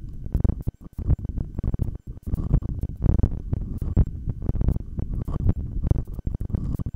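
Stomach growls and heartbeat picked up through a stethoscope held to the body during a long held breath: a dense run of irregular low thumps and gurgles.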